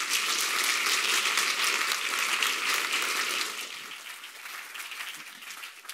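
Audience applauding, at full strength for the first three seconds or so and then dying away.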